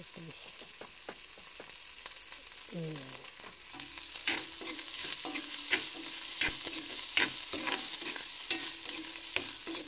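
Dried small fish, onion and chilli frying with a steady sizzle in a black wok, stirred with a metal spoon. From about four seconds in, the spoon knocks and scrapes sharply against the pan.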